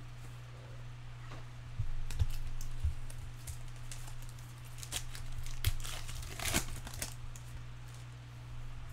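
Foil wrapper of a Bowman Chrome baseball card pack crinkling and tearing as it is opened, with cards rustling and a few sharp clicks from handling. A steady low electrical hum runs underneath.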